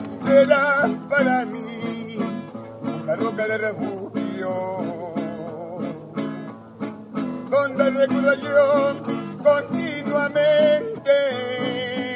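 Acoustic guitar played with chords, with a man singing long held notes over it at times.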